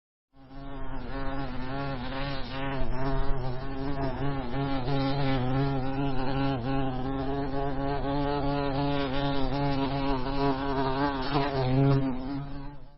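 Honey bees buzzing, a continuous buzz whose pitch wavers slightly. It comes in shortly after the start and cuts off abruptly at the end.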